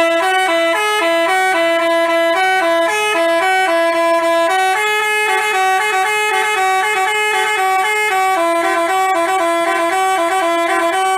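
Basuri 'telolet' multi-tone bus horn playing a melody of short notes stepping up and down, with two pitches sounding together.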